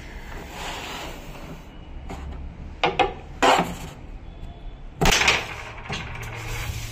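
Wooden carrom men clicking and knocking on a carrom board as they are handled and struck, with sharp clacks about three seconds in and a louder clack about five seconds in.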